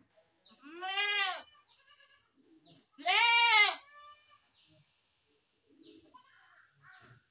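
A goat bleating twice, about two seconds apart: two long calls whose pitch rises and then falls, the second one louder.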